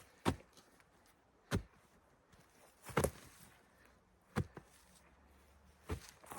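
A digging tool striking into soil by hand while a post hole is dug, five separate chopping strikes about a second and a half apart.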